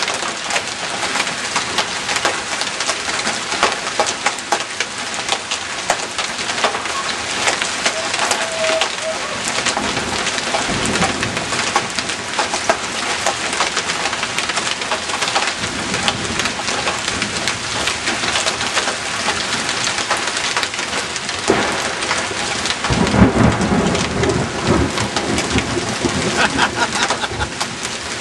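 Hail and heavy rain pelting down in a dense, continuous clatter of small impacts. Rolls of thunder rumble underneath, one about ten seconds in and a louder one about twenty-three seconds in.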